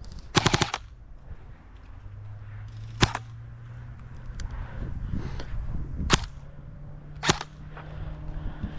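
Airsoft rifle firing a short full-auto burst of about eight rapid shots, then three single shots spaced a few seconds apart.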